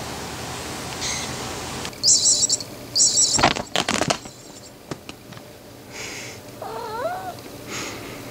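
A calico kitten at play: two short high-pitched bursts of noise, then a quick run of thumps as it jumps down from a couch onto the carpet, and a short wavering meow about seven seconds in.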